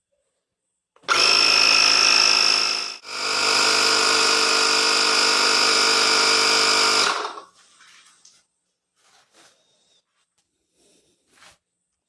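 Vonder portable 12 V/110 V air compressor (tire inflator) running steadily, its motor and pump buzzing loudly. It starts about a second in, drops out for a moment, runs on for about four more seconds and then shuts off, inflating something that had been let down flat.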